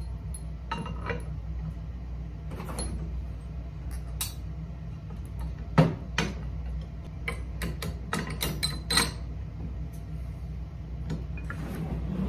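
Steel bolt, washer and linkage plates of an ATV implement lift being handled and fitted together by hand: scattered metallic clicks and clinks, the sharpest about six seconds in and a run of them between seven and nine seconds, over a steady low hum.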